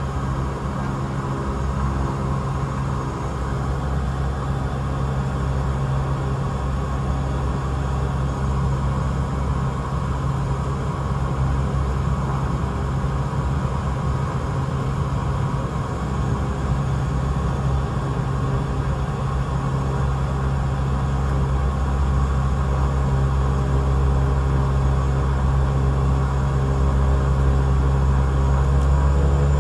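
Cessna 208 Caravan's single Pratt & Whitney PT6A turboprop engine and propeller heard from inside the cabin while taxiing: a steady drone with a strong low hum, slowly growing louder. Right at the end the pitch starts to rise as power comes up.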